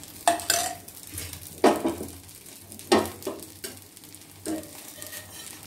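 Metal ladle and flat spatula scraping and knocking on a hot iron tawa as a dosa cooks, about half a dozen separate strokes, over a faint sizzle of the batter.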